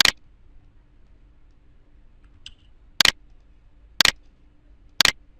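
Computer mouse clicks, each a quick press-and-release snap: one at the start, a faint one about two and a half seconds in, then three evenly about a second apart.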